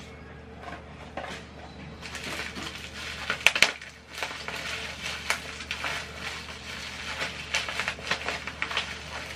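A parcel's protective packaging being torn open and unwrapped by hand: crinkling and rustling wrapping with many small crackles, and a few sharp, loud snaps about three and a half seconds in.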